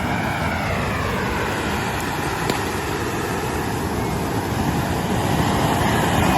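Hand-held tezutsu bamboo-tube fireworks spraying their columns of sparks, a continuous loud rushing roar that swells a little in the second half.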